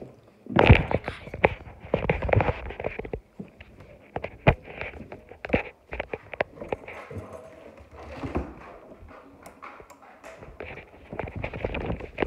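Handling noise from a phone being picked up and carried: a run of knocks, thumps and rubbing against the microphone. It is loudest in the first few seconds, thins to scattered clicks, and picks up again near the end.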